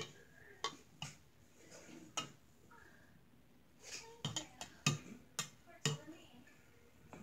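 Spoon tapping and clinking against a clear cup of slime mix: a few separate light taps, then a quicker run of about five taps in the second half.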